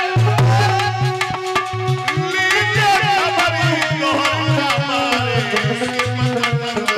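Devotional music: a tabla keeps a steady rhythm of low drum strokes under a male voice singing a melody that falls steadily in the second half.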